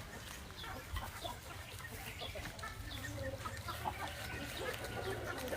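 Gamefowl chickens clucking in scattered short, soft calls at irregular intervals, over a faint steady low hum.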